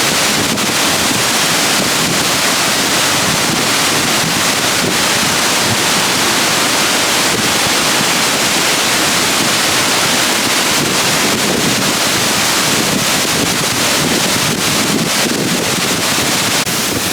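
Waterfall rushing with a loud, steady roar of falling water.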